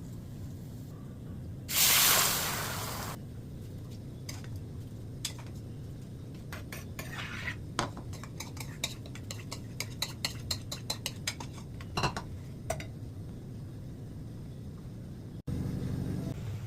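A short burst of loud sizzling as something goes into hot oil in a pan, about two seconds in. Then a spoon clinks and scrapes against the pan in quick, irregular strokes while stirring, over a low steady hum.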